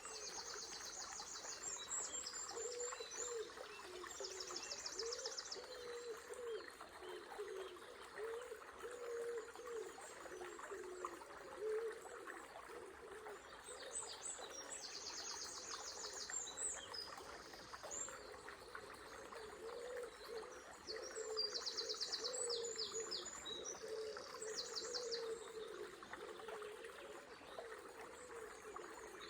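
Songbirds singing at dawn over the steady rush of a small river. Short, very rapid high trills come several times, about a second each, against a low wavering hum from the water or another bird.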